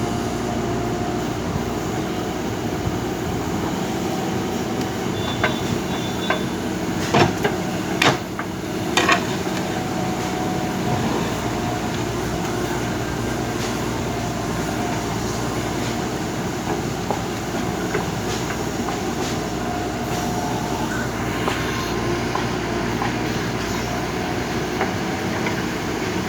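JCB backhoe loader's diesel engine running steadily while digging, with a cluster of sharp clanks about five to nine seconds in.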